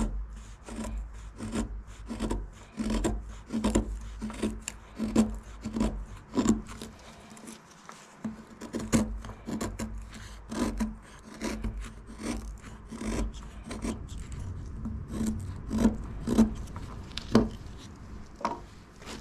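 Folding knife blade carving wood: a steady run of short scraping strokes, about two to three a second.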